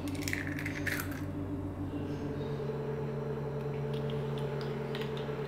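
A raw egg is pulled open by hand and slides out of its shell into a glass bowl, a soft wet squish in the first second. After that only a steady low hum remains.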